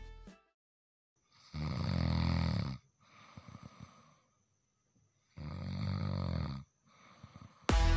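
A man snoring heavily in his sleep: two long snores about four seconds apart, with faint breathing between them.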